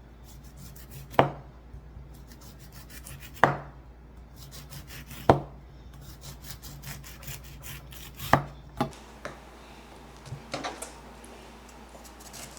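Cabbage being shredded by hand: runs of quick scraping, cutting strokes, broken by a few sharper knocks on the board.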